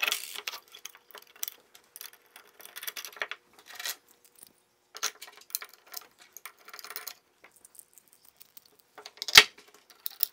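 Handling noise from assembling an ultracapacitor bank: irregular light metallic clicks and clinks of washers and terminal hardware, with capacitor cans set against the circuit board. One sharp knock near the end is the loudest sound.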